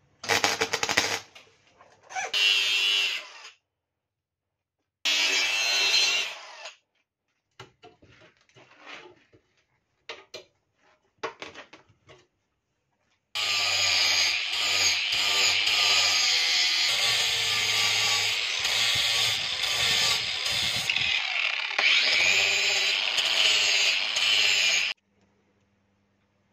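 Three short bursts of electric arc welding crackling on steel tubing, then a few scattered light clicks and taps. From about halfway through, a cordless Black+Decker 18V angle grinder runs steadily for about twelve seconds grinding the steel frame, then cuts off suddenly.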